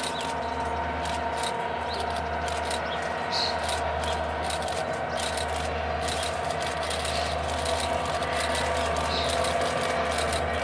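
Norfolk Southern freight train's diesel locomotives running steadily at a distance, with birds chirping now and then.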